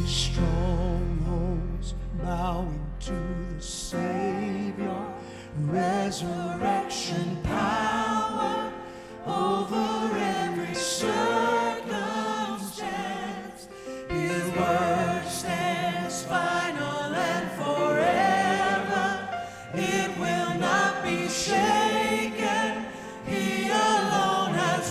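Live worship music: a band playing with a group of voices singing. A low held note carries the first few seconds before the singing comes in fully.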